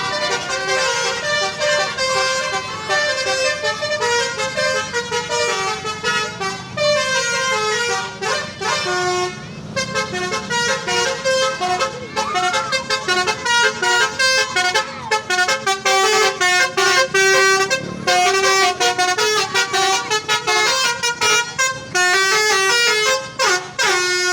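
Bus's Basuri telolet horn, a multi-tone musical horn, playing a melody in stepped notes, then quick staccato toots through the second half.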